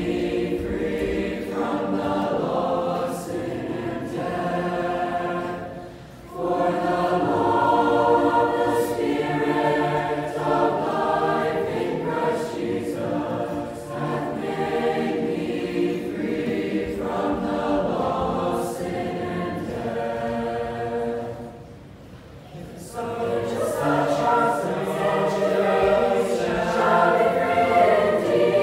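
A large mixed youth choir of girls' and boys' voices singing unaccompanied, with short pauses between phrases about six seconds in and again a little past twenty seconds.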